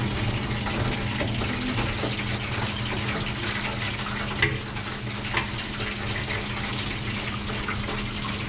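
Hot oil in a deep fryer sizzling and bubbling steadily as pieces of battered fish fry, over a steady low hum. A couple of sharp metal clicks, of tongs against the wire draining rack, come about halfway through.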